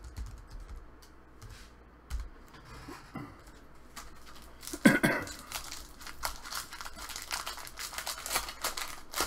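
A trading card pack's wrapper crinkling and tearing open in the hands, then cards being handled and flicked through, a quick run of light clicks and rustles over the second half with a louder rustle about five seconds in.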